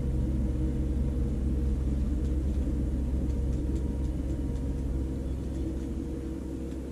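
Faint rustles of book pages being flipped through quickly, over a steady low rumble with a faint hum that eases off near the end.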